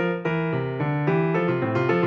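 Background music: a brisk melody of short, clearly pitched notes, changing several times a second.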